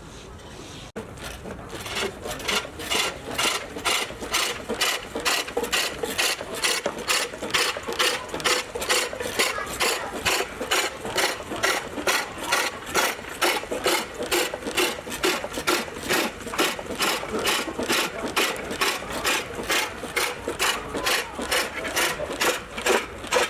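A hand tool rasping back and forth in steady, even strokes, about three a second, starting about a second in.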